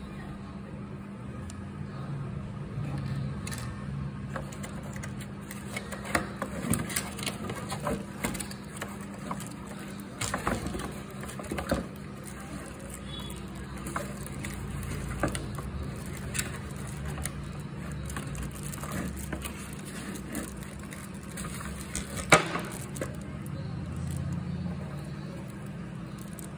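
Handling of a cardboard box and plastic-wrapped batteries: scattered rustles and clicks, with one sharp click about three-quarters of the way through, over a steady low hum.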